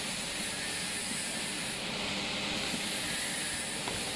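Steady hiss, with one light tap just before the end.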